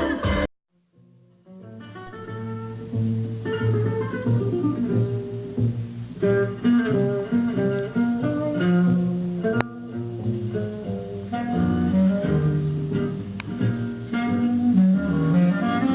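Guitar-led instrumental music with a bass line, played back through a vintage stereo console's speakers; it starts after a short break of near silence about a second in.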